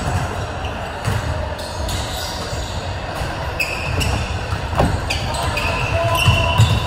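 A basketball bouncing on an indoor court during a game, with echoing thuds and short high squeaks from about halfway through.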